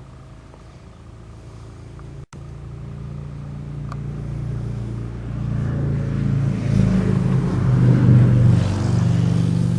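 A motor vehicle's engine running, growing louder over several seconds to a peak near the end and then easing off, as it draws close by.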